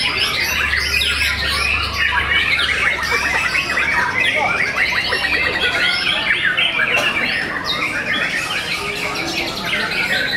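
Several caged white-rumped shamas (murai batu) singing at once: a dense, unbroken tangle of quick trills, whistles and chattering notes. A low hum runs underneath for the first four seconds.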